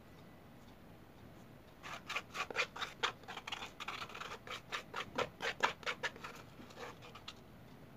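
Plastic spoon scraping the inside of a plastic bowl in quick, repeated short strokes, scraping out the last of the chocolate frosting. It starts about two seconds in and stops near the end.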